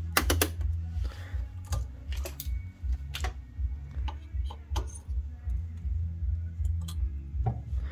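Irregular clicks and knocks of a tube TV's picture-tube socket plug and wiring being handled, over a steady low hum.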